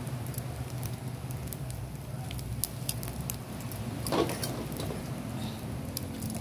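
Charcoal grill fire under grilling fish, crackling with scattered sharp pops over a steady low hum. A brief louder rustling noise comes about four seconds in.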